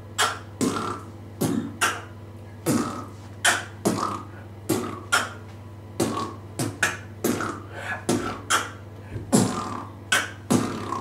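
Solo beatboxing: one person making kick-drum and snare sounds with the mouth in a steady rhythm, about two to three hits a second.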